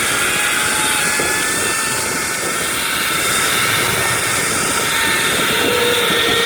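Zipline trolley pulleys whirring along the steel cable with a steady high whine that drifts slowly in pitch, over a constant rush of wind noise.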